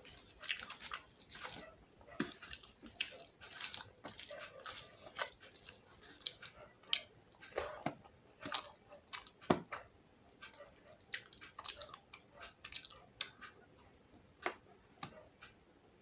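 A person chewing a mouthful of fish and rice close to the microphone: soft, wet mouth clicks and smacks at an irregular pace.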